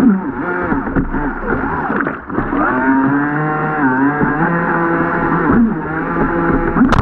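Radio-controlled jet boat's motor running, its pitch rising and falling again and again as the throttle is worked.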